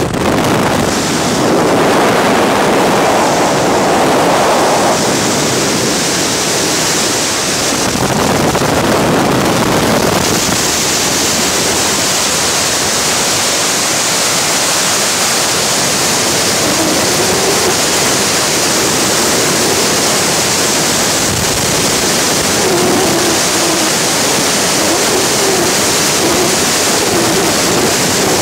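Freefall wind rushing over the camera's microphone: a loud, steady rush of air, a little fuller for the first few seconds after the exit from the aircraft.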